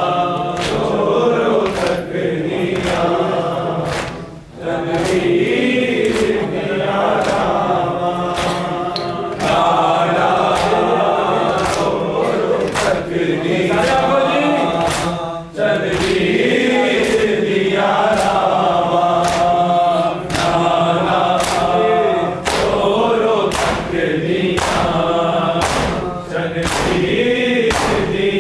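A group of men chanting a Shia nauha (mourning lament) in unison, with sharp rhythmic slaps of matam (hand-beating on bare chests) about once a second. The chant breaks off briefly twice between lines.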